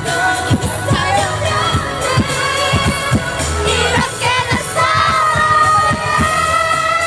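Pop song with high female voices singing over a steady beat of about two strokes a second; from about five seconds in, the voices hold one long note.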